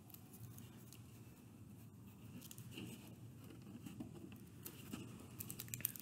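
Faint rustling and small ticks of tissue paper and card handled by fingers as a small paper piece is pressed into place, over a low steady room hum; the ticks come more often near the end.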